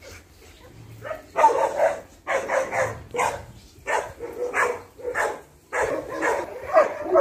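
A dog barking repeatedly, starting about a second in, at roughly two barks a second.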